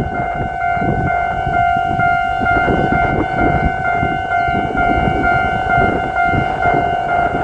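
Japanese railway level-crossing alarm ringing its repeated 'kan-kan' tone, about two to three strokes a second, over a steady low rumble.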